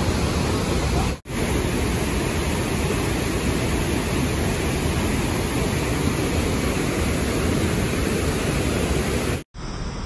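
Whitewater of a mountain creek rushing steadily through a narrow rock chute, a loud even noise. It cuts out abruptly twice, briefly, about a second in and near the end.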